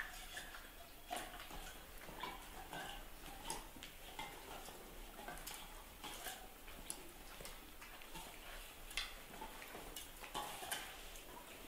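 Irregular light clicks and taps of a puppy and a baby macaque moving and scuffling on a tiled floor around a small bottle.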